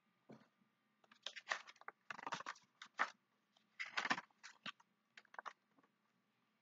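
Pages of a hardcover picture book being turned by hand: a run of short papery rustles and flaps starting about a second in and dying away about five and a half seconds in.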